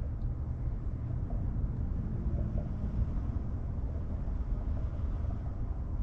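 Steady low rumble inside the cabin of a 2024 Tesla Model 3 Long Range on wet roads, with no speech over it.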